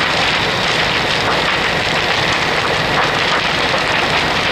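Metal building engulfed in an ammonium nitrate fire, the flames giving a loud, steady, dense crackling hiss.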